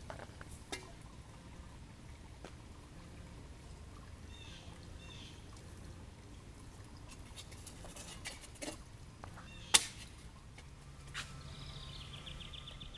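Faint outdoor pond ambience: water trickling from a waterfall, with a few short bird chirps in the middle and a trilled bird call near the end. Scattered sharp clicks, one much louder about three quarters through.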